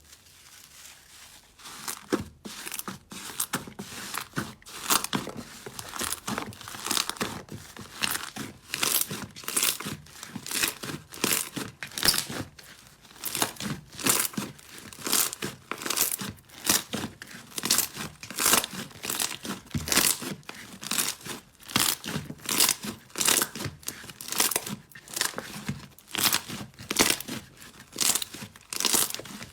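Slime being squeezed and kneaded by hand, crackling and popping in a steady run of squishes about one to two a second, beginning a second or two in.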